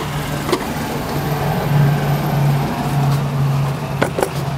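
A steady low hum, with a sharp click about half a second in and two more close together near the end as the plastic intercooler hose pieces are pulled apart by hand.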